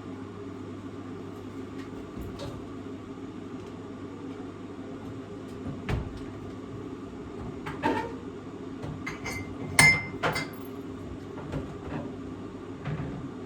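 Kitchen handling noises: scattered knocks and clinks of things being picked up and set down on a counter, over a steady low hum. The loudest is a clinking knock about ten seconds in, with a short ring after it.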